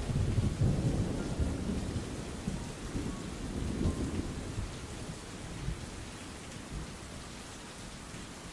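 Steady rain with a low rumble of thunder that fades away over the second half.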